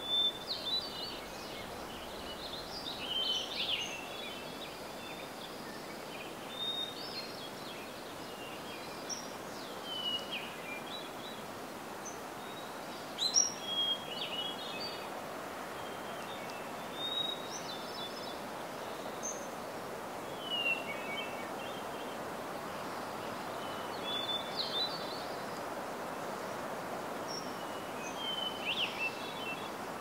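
Wild songbirds chirping and twittering in short phrases every few seconds over a steady background hiss.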